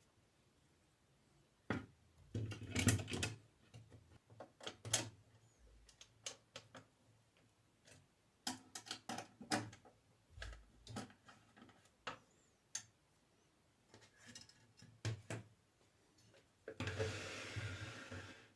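Irregular clicks, taps and knocks of small mechanical parts and tools being handled, with a denser scraping rattle lasting over a second near the end.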